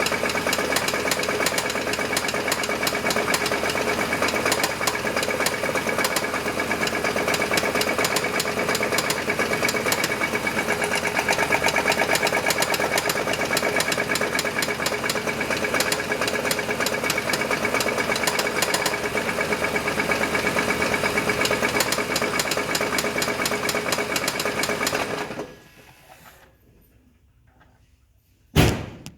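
Chevy S10 engine running with a fast, steady knocking from the engine, which the owner believes is rod knock. The engine shuts off about 25 seconds in, and a single loud thump follows near the end.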